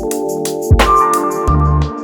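Background music: electronic track with sustained keyboard chords, a bass line and drum hits.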